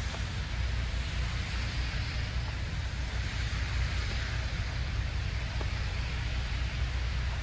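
Steady city street noise: road traffic with tyre hiss over a low rumble, swelling a little in the middle as a vehicle passes.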